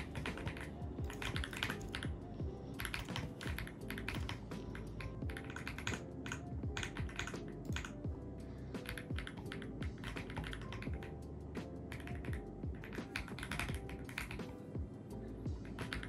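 Typing on an AULA F75 mechanical keyboard: quick runs of key clacks broken by short pauses, over soft background music.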